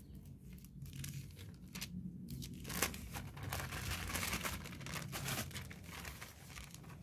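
Thin plastic bags and packaging film crinkling as they are handled, in irregular bursts of crackle that are busiest in the middle.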